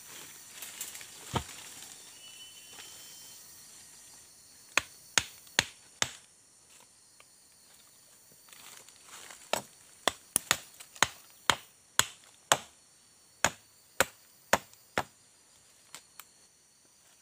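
Machete chopping wood with sharp strikes: a quick burst of four, then after a pause a run of about a dozen, roughly two a second.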